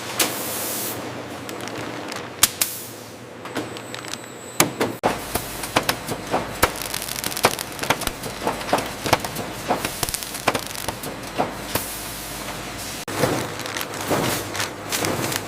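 Factory machinery sounds: irregular sharp clicks and light clattering knocks over a low steady hum, the clicks coming thickest from about five seconds in.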